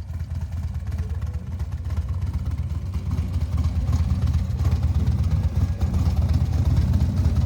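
Harley-Davidson Road Glide Special's V-twin engine running with a low, pulsing sound, growing steadily louder.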